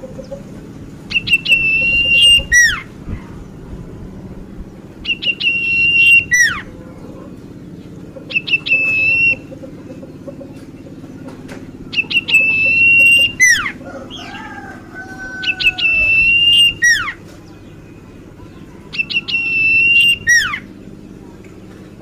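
A small caged songbird repeats a loud whistled phrase about every three to four seconds: a steady high note held for about a second that ends in a sharp falling sweep. Around the middle a softer, lower wavering whistle sounds once.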